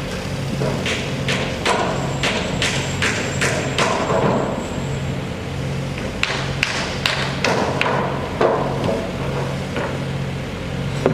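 Construction work: two runs of sharp knocks, about two a second, over a steady low machine hum.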